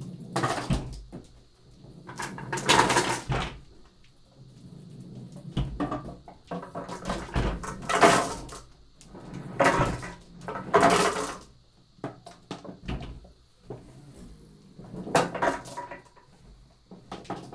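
Dozens of marbles rolling across paint-covered paper in a large wooden-framed tray, rumbling and clattering against the wooden sides in a surge each time the tray is tilted, about five surges in all.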